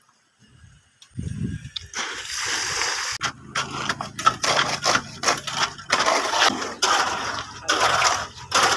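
Concrete mixer running, its drum churning wet concrete with an irregular splashing, scraping sound over the engine's steady low hum. The sound starts about two seconds in, after a quiet start.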